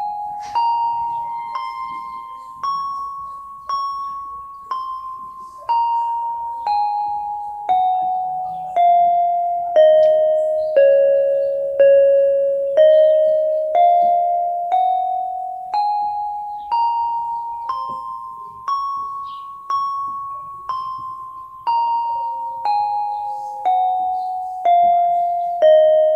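Yamaha PSR-32 electronic keyboard playing a scale one note at a time, about one note a second, each note struck and left to fade. The line climbs to its top note about four seconds in, steps down to its lowest near twelve seconds, climbs back up by about twenty seconds and descends again.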